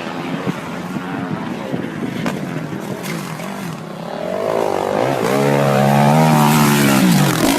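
Dirt bike engine running, building up and revving louder from about four and a half seconds in, its pitch rising and falling.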